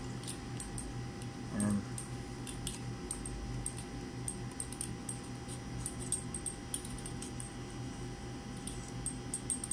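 Stainless steel chopstick clinking and scraping against the inside of a glass test tube as a cotton plug is pushed into place: scattered light, irregular clicks.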